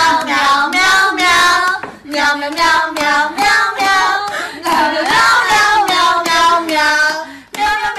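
A high-pitched voice singing a song in held notes with short breaks between them, loud throughout.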